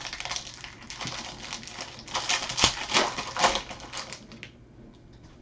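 Baseball trading cards being handled and flipped through by hand, a quick run of soft clicks and rustles that stops about four and a half seconds in.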